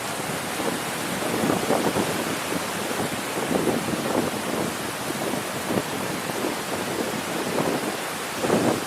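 Wind buffeting the microphone: a steady hiss with irregular gusty rumbles, strongest just before the end.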